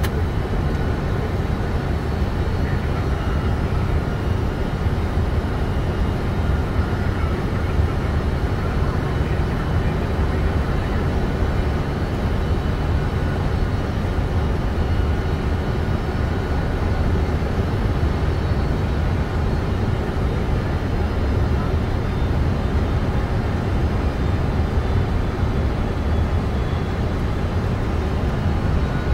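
Steady flight-deck noise of a Boeing 747 on final approach: a low airflow and engine rumble, even throughout, with a faint steady whine above it.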